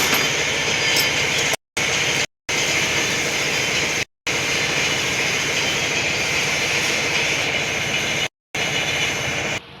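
Steady running machine noise with a strong hiss, cut to silence four times by brief dropouts.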